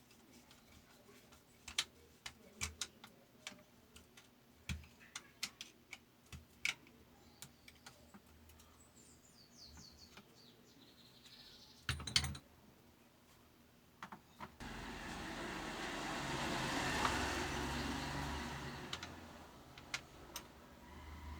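Scattered light clicks and taps of small parts being handled, with a louder clack about twelve seconds in, then a hiss that swells and fades over about five seconds.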